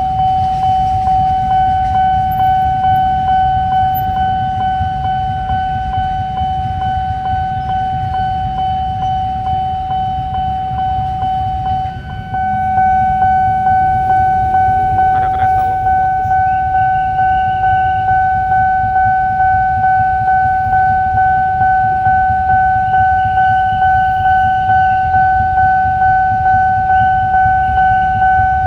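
Railway level-crossing warning alarm, a steady high tone pulsing about twice a second, signalling an approaching train. A low rumble of traffic lies underneath.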